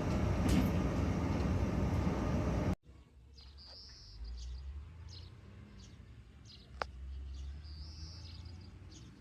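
Abukuma Express train running, a steady rumble and hiss that cuts off abruptly about three seconds in. A much quieter stretch follows, with a low hum, a few high bird chirps and a single sharp click.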